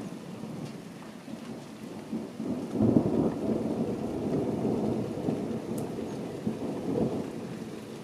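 Thunder rumbling: a long roll that swells about two seconds in, is loudest around three seconds and rolls on with another peak near seven seconds before fading. Rain falls steadily underneath.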